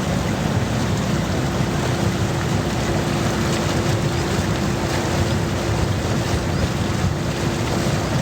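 Small outboard motor of a motorized bamboo raft running steadily, with a constant hum and low rumble, and wind buffeting the microphone.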